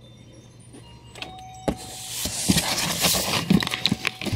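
Comic books being handled and slid about in a cardboard shipping box. After a click, from about two seconds in, there is a steady rustling and scraping of paper and cardboard, with knocks.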